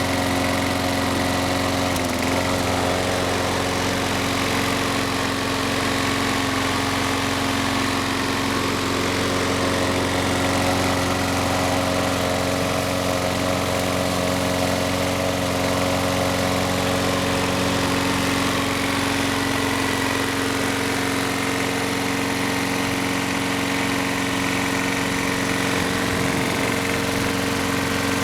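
Sears Craftsman 21-inch walk-behind mower's engine running steadily and smoothly on a replacement spark plug, the original plug having been found wet.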